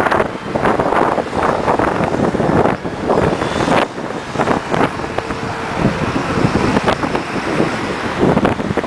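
Road traffic on a busy city street: cars and motor scooters passing.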